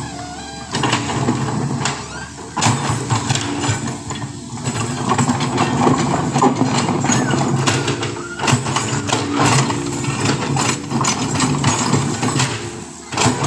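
Diesel engine of heavy road-repair machinery running steadily, with repeated clattering knocks throughout.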